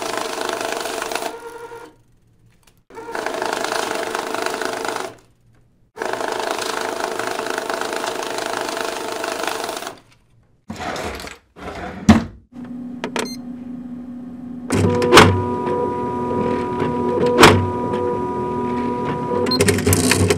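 Banknote counting machine running in three whirring runs of a few seconds each. Then an office printer starts up: a few clicks, followed by a steady motor hum with two sharp knocks.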